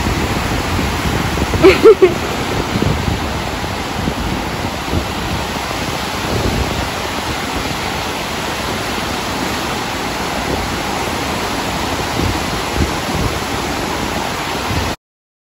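Steady rushing of wind on the microphone and breaking surf. A short vocal sound about two seconds in is the loudest moment, and all sound cuts off abruptly shortly before the end.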